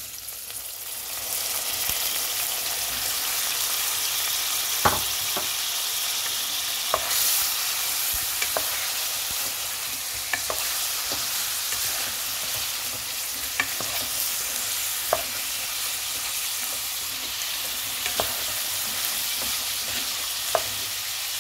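Beef cubes frying in hot oil with sautéed onion and garlic, a steady sizzle that builds over the first second or two as the meat goes in. A spatula stirs the meat, knocking and scraping against the pot now and then.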